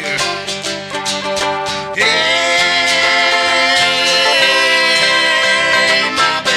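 Acoustic country-style song with plucked strings; about two seconds in, singing comes in on a long held note.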